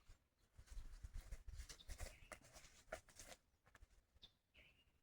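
A small bird gives one short chirp that drops in pitch near the end, after a few seconds of faint rustling and knocking.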